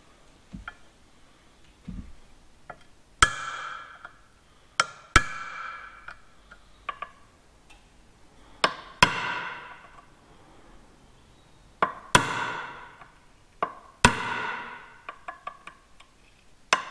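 Hammer striking a dot punch against the steel plates of a Centurion tank clutch pack, marking the plates so they go back in the same rotation. About nine sharp blows, several in quick pairs, each leaving the plates ringing for about a second, with a few lighter taps between.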